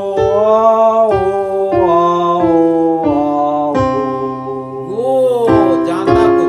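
Vocal warm-up exercise: sustained singing of a vocalise over piano chords, the notes stepping downward about every half second.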